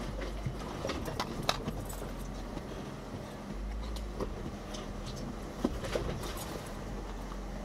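Jeep Wrangler Unlimited Rubicon crawling slowly over a rough off-road trail: the engine runs low and steady under scattered knocks and rattles from the vehicle working over the terrain.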